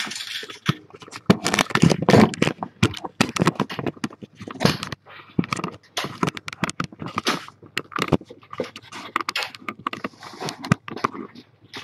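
Close handling noise: irregular rustling, scraping and knocks. These are consistent with the camera being moved and the kitten's bedding being handled close to the microphone.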